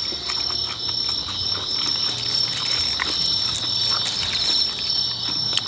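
Steady high-pitched chorus of night insects chirping, with scattered faint clicks and smacks of eating.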